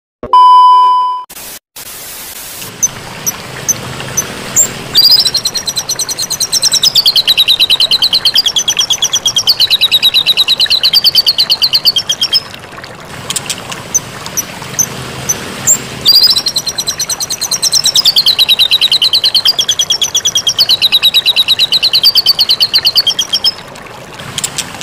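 A brief static-glitch sound effect with a steady beep, then a recorded white-rumped shama (murai batu) singing: a long, very rapid rattling trill that wavers up and down in pitch for several seconds, heard twice, over a steady hiss and regular high chips.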